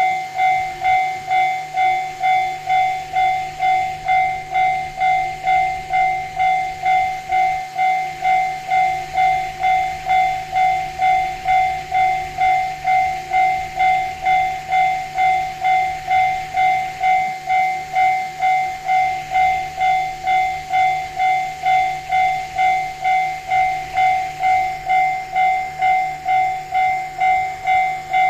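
Japanese level-crossing alarm ringing steadily, about two strikes a second, each strike a clear ringing tone.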